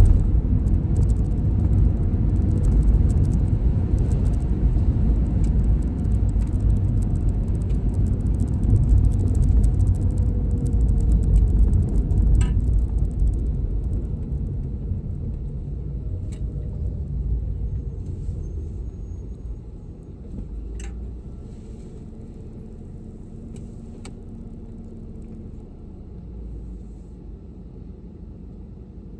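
Low rumble of car engine and tyre noise heard from inside a moving car, dying away about two-thirds through as the car slows and stops at a red traffic light, leaving a quieter steady hum. A few sharp clicks are scattered through it.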